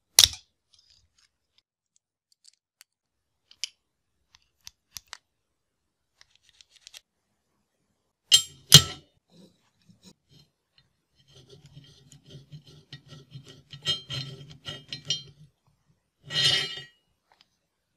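Steel locking C-clamp pliers being worked by hand: a sharp metal snap at the start, light clicks, two loud snaps about halfway through as the clamp is fitted to a steel bar, then several seconds of quick metallic ticking and grating as the adjusting screw in the handle is turned, and one more loud snap near the end.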